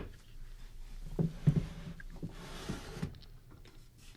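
Art supplies being handled in a storage-cabinet drawer: a few light knocks and clatters, the loudest about a second and a half in.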